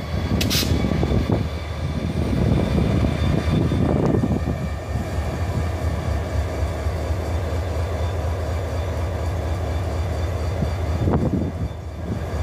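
EMD SD40-2 diesel-electric locomotives passing close by, their turbocharged 16-cylinder two-stroke diesel engines running with a steady low rumble and thin steady high tones over it. There is a brief hiss about half a second in.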